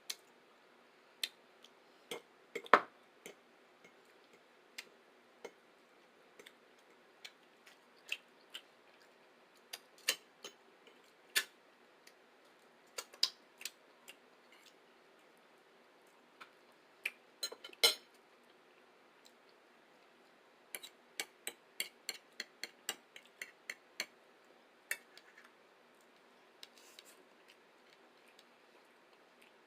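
Eating at close range: scattered sharp clicks and taps of utensils and bites, at irregular spacing, with a quick run of them about two-thirds of the way through.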